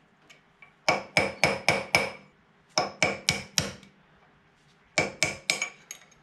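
Hammer striking a steel pin punch to drive the outer bearing race out of the top of a 1965 Toyota Land Cruiser FJ45's front steering knuckle. The blows come in three quick bursts of four or five, each with a bright metallic ring.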